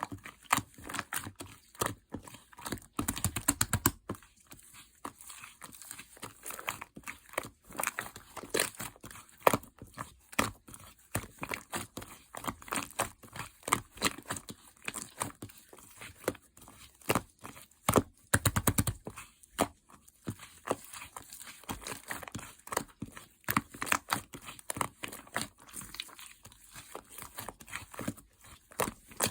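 Light-yellow clear slime being squished and pressed by hand, giving a continuous stream of sticky crackles, clicks and small pops, with heavier squishing stretches about three seconds in and again past the middle.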